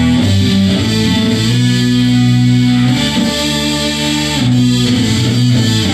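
Electric guitar music: slow held chords, each changing to the next about every second and a half.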